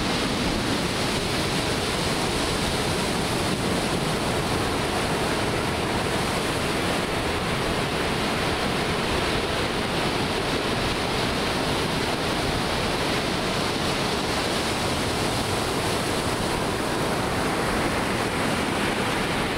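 Ocean surf breaking and washing up onto a sandy beach: a steady rush of noise.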